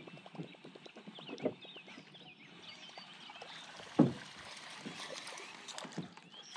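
A fishing reel cranking a topwater lure back to the boat, a faint rapid ticking, with birds chirping above it. There is a single sharp knock about four seconds in.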